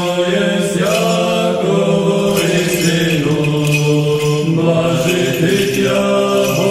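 Orthodox liturgical chant: voices singing a slow melody in long held notes that move step by step from one pitch to the next.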